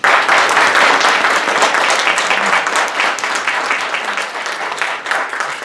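Small audience applauding, many hands clapping together. It starts suddenly and thins out toward the end.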